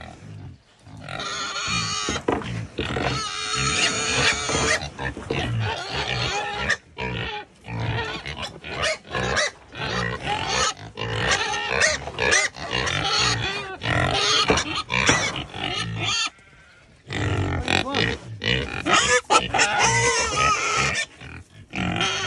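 Domestic pigs, a large boar and sows, grunting and calling almost without pause, with a short lull about two-thirds through.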